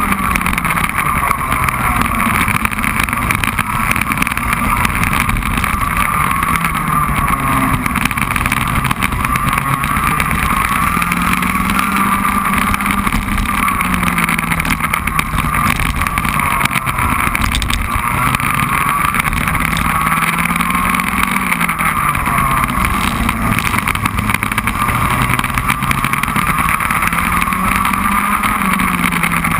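Racing kart engine heard from on board at close range, its revs climbing and falling again and again as the kart accelerates out of corners and slows into them.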